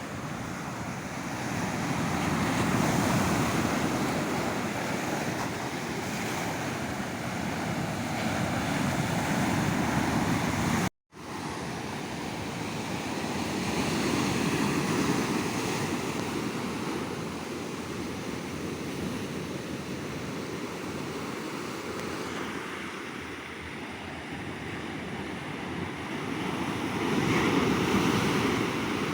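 Ocean surf breaking on a sandy beach, the wash of the waves swelling and easing every several seconds. The sound cuts out for a split second about a third of the way through.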